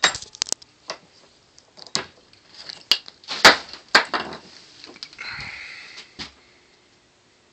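Workshop handling clatter: sharp knocks and clicks of a bench vise being opened and a polycarbonate tube taken out of its jaws. The loudest knocks come about three and a half and four seconds in, and a short rubbing scrape follows about five seconds in.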